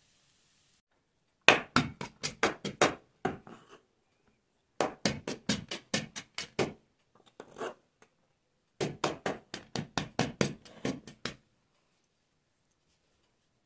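Steel spoon knocking against a stainless-steel dish in rapid taps, about five a second, in three runs of a couple of seconds each with pauses between.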